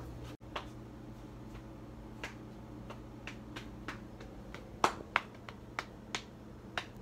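About ten sharp, irregular clicks and taps, the loudest two close together about five seconds in, over a steady low hum.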